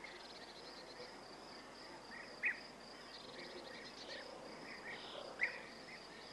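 Faint outdoor insect chirring, a steady high pulsing with no break, with two brief louder chirps about two and a half and five and a half seconds in.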